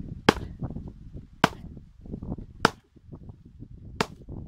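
A knife chopping into the base of a palm frond: four sharp strikes about a second and a quarter apart, with dry fronds rustling and crackling between the blows.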